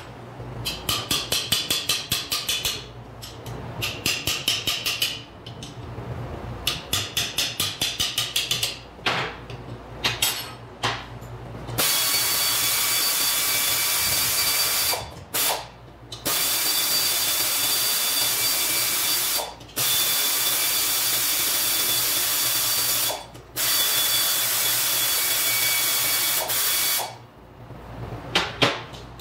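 Pneumatic tool on a compressed-air line working bolts on a manual transmission case: three stretches of rapid hammering in the first nine seconds. Then long, steady blasts of air hiss with a faint whistle, broken by short pauses, stopping a couple of seconds before the end.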